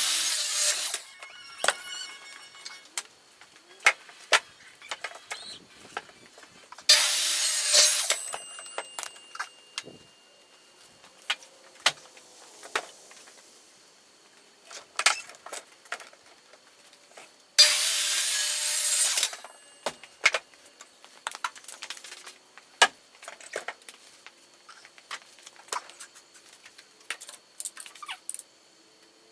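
Three brief bursts of sawing or scraping on wood, each lasting a second or so, with scattered knocks and clicks of tools being handled in between.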